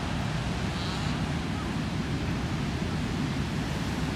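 Pacific Ocean surf breaking on a sandy beach, a steady rushing wash, with wind buffeting the microphone.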